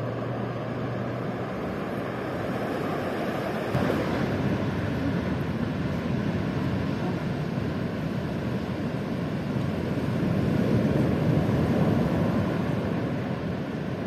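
Ocean waves and surf washing in as a steady rush that swells to its loudest about ten to twelve seconds in.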